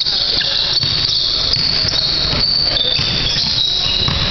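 Basketball game sounds in a gym: a ball bouncing on the hardwood floor a few times and sneakers squeaking, over steady hall noise.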